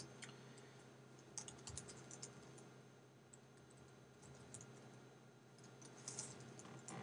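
Faint computer keyboard key presses: a few scattered taps about a second and a half in and another cluster near the end, over a low steady hum.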